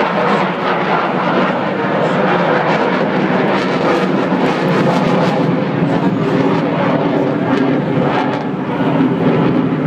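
Eurofighter Typhoon's twin Eurojet EJ200 turbofan engines heard in flight: a loud, steady jet roar.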